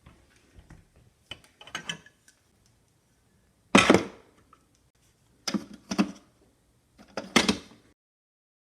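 A handful of separate knocks and clatters, a second or two apart, the loudest about halfway through.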